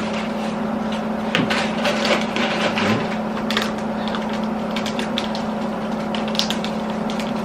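Close-up snack-eating sounds: irregular crunching and crinkling clicks from chewing and handling snacks, over a steady low hum.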